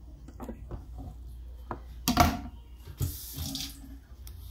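A knife knocking through watermelon rind on a plastic cutting board, a loud knock about two seconds in as the knife is put down, then a short rush of water at a kitchen sink.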